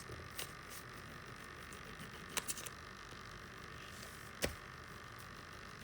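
A few light, sharp clicks and taps, the loudest about two and a half and four and a half seconds in, over a steady faint hiss.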